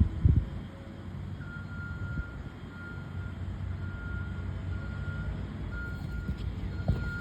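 Backup alarm of a reversing construction vehicle: a single-pitched beep repeating about once a second, starting about a second and a half in, over the low rumble of its diesel engine. A couple of heavy knocks sound near the start.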